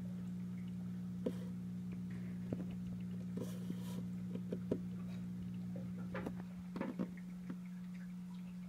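Steady low electrical hum from the aquarium's equipment, with a handful of faint short clicks and taps scattered through it.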